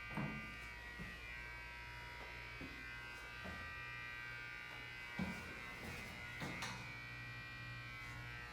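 Steady electrical buzz inside an Otis hydraulic elevator car, with faint irregular clicks every second or two. The rider takes the clicking for a relay in the car, possibly behind the operating panel or on the car top.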